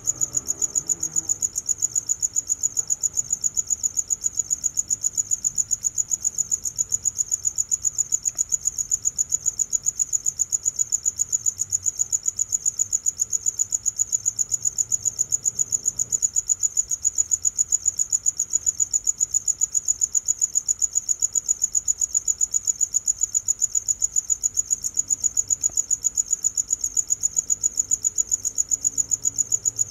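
Crickets chirping in a steady, high-pitched, evenly pulsed trill that keeps the same rhythm throughout.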